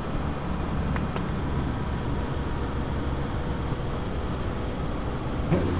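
Motorcycle engine running at a steady cruising speed, heard from a camera mounted on the bike, with wind and road noise rushing over the microphone.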